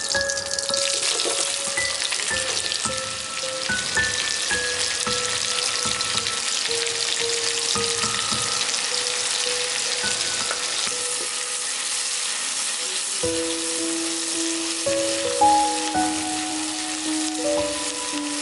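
Food sizzling as it fries in an oiled pan, a dense steady hiss that sets in about half a second in.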